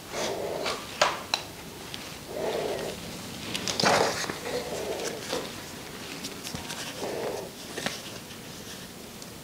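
Handling sounds of crocheting with yarn at a table: light clicks and taps, a brief louder rustle about four seconds in, and soft breaths close to a clip-on microphone every two seconds or so.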